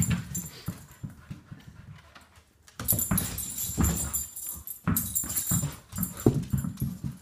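A dog scrambling among loose tennis balls on a hardwood floor: irregular knocks and clicks of balls and claws, in two busy spells with a lull between.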